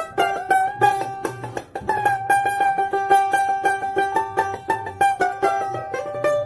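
Background music led by a plucked string instrument picking quick repeated notes over held melody pitches.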